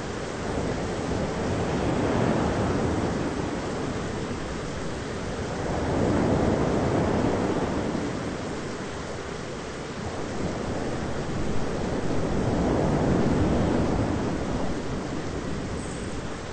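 Thunderstorm ambience: an even rushing noise, like wind and surf, that swells and eases slowly three times, with no sharp thunderclap.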